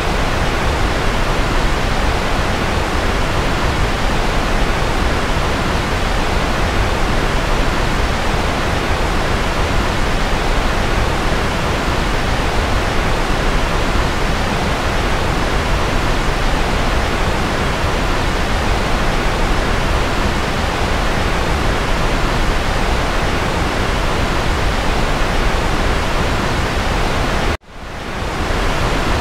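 Steady white noise for sleep: a constant, even hiss, fuller in the lows than the highs. Near the end it cuts out abruptly for an instant and fades back in over about a second.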